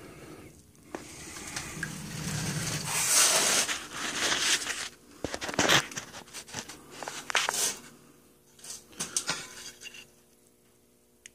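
Handling noise at a milling machine: rustling and a rushing hiss for the first few seconds, then scattered sharp clicks and light knocks, dying away to near silence near the end.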